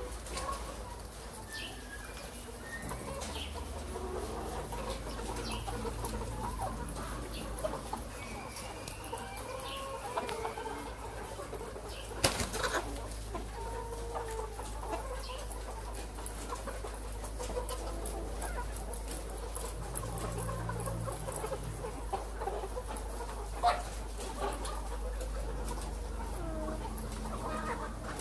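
A house full of caged brown laying hens clucking and calling, many birds at once, over a steady low hum. Two sharp knocks stand out, about twelve seconds in and again near the end.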